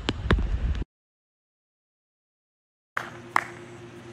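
Rain noise and pattering on a wet outdoor court that cut off abruptly, followed by about two seconds of dead silence. Then a quieter steady low hum comes in, with one sharp knock about three and a half seconds in.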